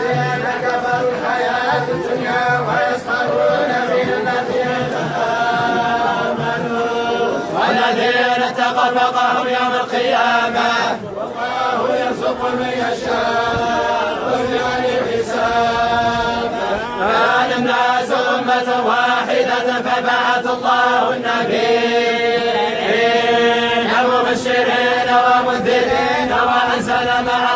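A large group of men chanting Quran verses together in unison, voices drawn out in long held notes over a steady drone-like tone.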